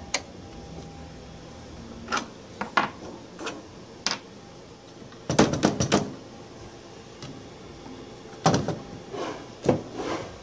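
Scattered metal clicks, knocks and clatter from hands working over the steel chassis of a vacuum-tube military frequency meter during teardown: tube shield cans and panel hardware being handled. The clatter comes as separate sharp clicks, with a dense run of rattling about five seconds in and another knock about eight seconds in.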